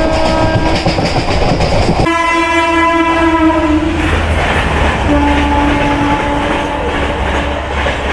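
Suburban electric local train running with a steady low rumble and wheels clattering on the rails. Its horn sounds in long steady blasts: one about two seconds in lasting about two seconds, and another from about five to seven seconds in.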